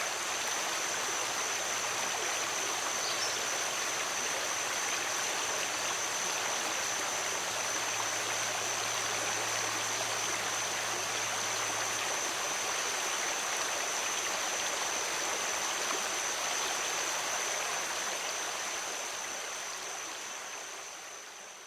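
River water flowing steadily, a continuous rushing wash, with a thin steady high tone over it; it fades out over the last few seconds.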